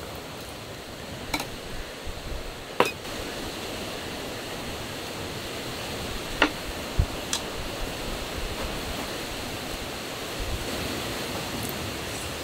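Strong gale wind rushing steadily against the tent, with a few light clicks and knocks from handling a bottle and cup on the table.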